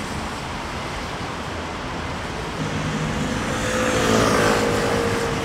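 Street traffic on a wet road, a steady hiss of tyres and engines, with one vehicle passing close and growing loudest about four seconds in.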